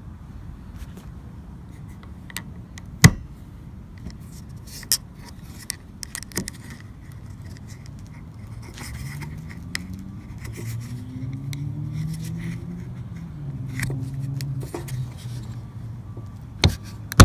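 Scattered sharp clicks and knocks from handling the wiper arm and its plastic cover, the loudest about 3 s in. In the middle, a car engine runs for several seconds, its pitch rising and wavering.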